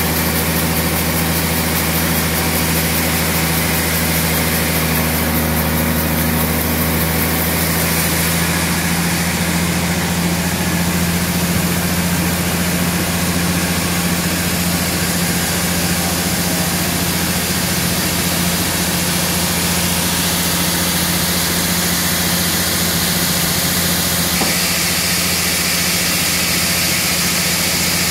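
Large Hata Iron Works band sawmill running, its blade ripping lengthwise through a dry tamarind log: a steady loud machine drone with a constant low hum under the hiss of the cut.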